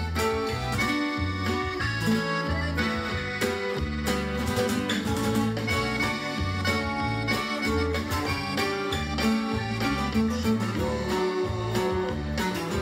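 A bajo quinto, the ten-string Mexican bass guitar, played with a pick: single bass-note runs alternating with strummed chords in a steady rhythm.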